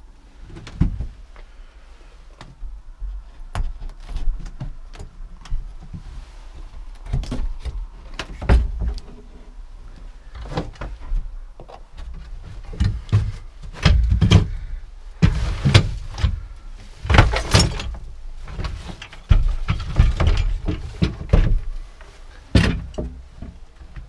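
A stuck wooden door being forced open: repeated thumps, knocks and scraping as it is pushed and worked loose. The heaviest strikes come in the second half.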